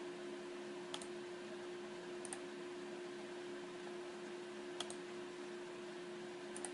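Computer mouse clicking: four sharp clicks, a second or more apart, some doubled, over a steady hum and hiss.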